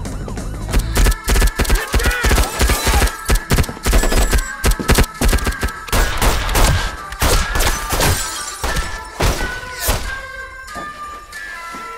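Film gunfire: a rifle and police pistols firing many shots in rapid succession, thinning out after about ten seconds, with music underneath.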